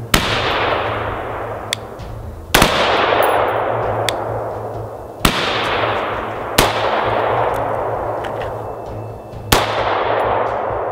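5.56 rifle fired in single shots, five shots a second and a half to three seconds apart, each followed by a long echoing tail. Fainter clicks come between the shots.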